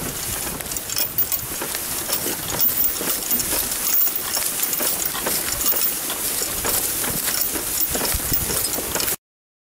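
An ox's harness trace chains jangling and clinking as the ox walks through grass, over a steady hiss. The sound cuts off suddenly near the end.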